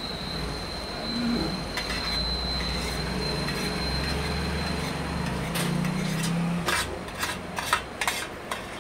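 A steel spoon scraping along a stainless-steel thali plate, with a low rumble underneath, then several sharp clinks of the spoon against the steel near the end.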